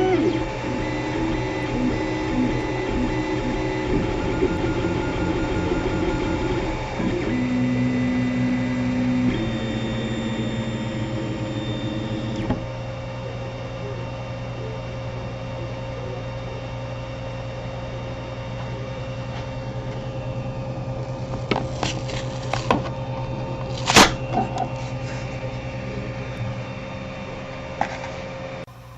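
3D printer running a print, its stepper motors fitted with stepper-motor smoothers: steady whining tones that jump to new pitches every few seconds as the head changes speed, over a continuous fan hum. A few sharp clicks come near the end, the loudest about five seconds before it.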